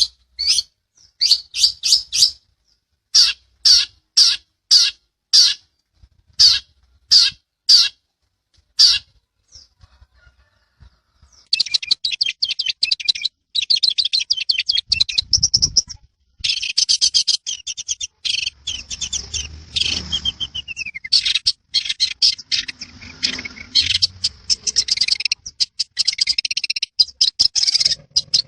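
Long-tailed shrike (cendet) singing: a string of separate sharp notes in short groups, a brief pause about nine seconds in, then fast, unbroken chattering song full of quick trills.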